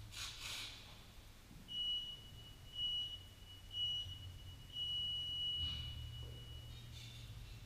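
Digital gym interval timer counting down: three short high beeps a second apart, then a longer beep as the clock starts counting up, the signal to start the workout.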